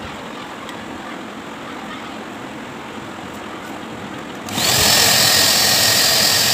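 A hose-type pet blow dryer switches on about four and a half seconds in. It runs up with a brief rising whine into a loud, steady rush of air with a high whine. Before that there is only a quieter steady fan-like hum.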